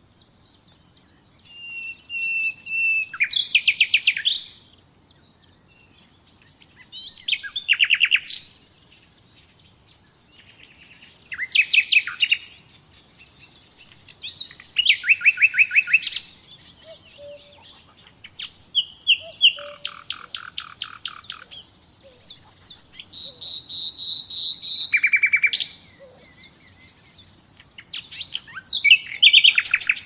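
Common nightingale singing: a series of separate song phrases, each one to three seconds long with short pauses between, built of fast repeated notes and rattling trills, some with a held pure whistle.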